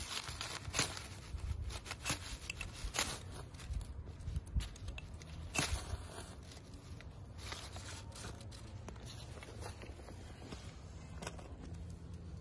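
Ferro rod fire starter scraped hard in short, irregular strokes, each one a harsh rasp, striking sparks onto paper to light it. The strokes come thick in the first half and thin out later.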